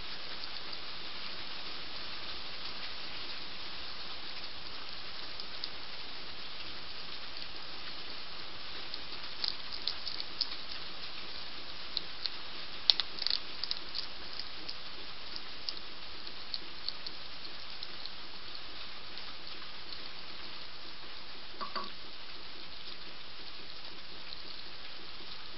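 Heavy rain falling steadily, with a scatter of short sharp crunches from a European hedgehog chewing dry kibble, bunched together about halfway through.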